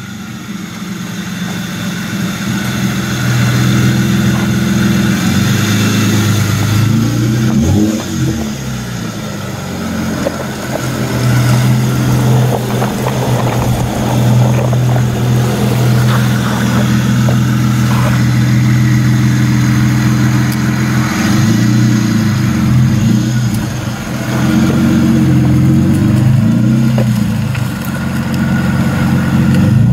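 Straight-piped Toyota Supra MKIV's rebuilt 2JZ straight-six running loud and steady, its note dipping and rising a few times, about 8 and 22 seconds in. Near the end the engine note changes again as the car pulls away.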